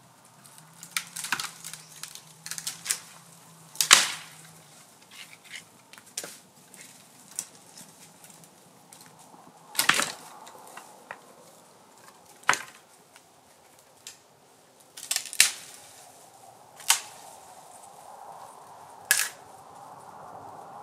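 Sharp cracks and knocks at irregular intervals, about fifteen in all, the loudest about four seconds in.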